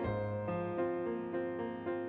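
Background music: a gentle piano melody of overlapping held notes.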